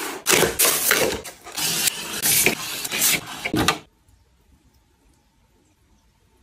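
Kitchen items being handled: a quick run of scraping, rustling and knocking that stops abruptly about four seconds in, followed by near silence.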